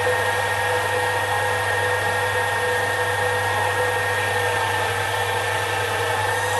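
Sherline micro lathe running with a steady motor-and-spindle whine while a carbide-insert boring bar cuts inside a steel bush. The pitch creeps up slightly right at the end.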